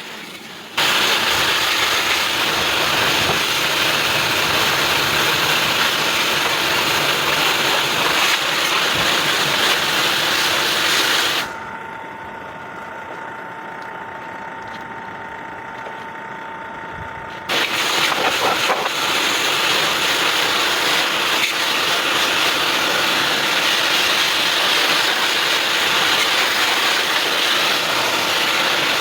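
A water jet is hissing against an air conditioner's condenser coil as the dirt is flushed out of the fins. The spray stops about halfway through, leaving a quieter steady hum, then starts again about six seconds later.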